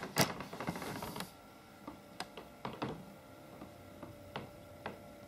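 A burst of rustling and clicking in the first second or so, then scattered light clicks and taps, over a faint steady hum.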